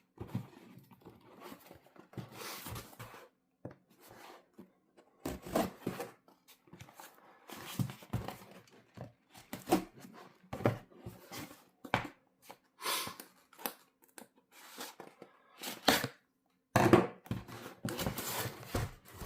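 Shipping box being opened by hand: tearing, with packaging rustling and knocking in irregular bursts.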